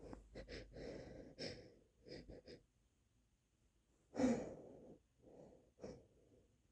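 A person's run of short wet sniffs and catching breaths, then one stronger stifled sneeze about four seconds in, followed by a few softer sniffs.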